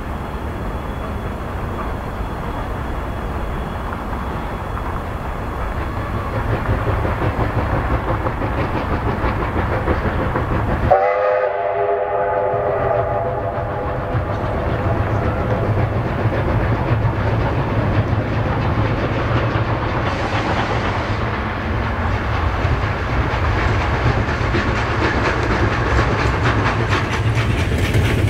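LV-class steam locomotive running slowly with a steady rumble and hiss of steam. About eleven seconds in its whistle sounds, a chord of several tones held for about two seconds, and then the running noise goes on.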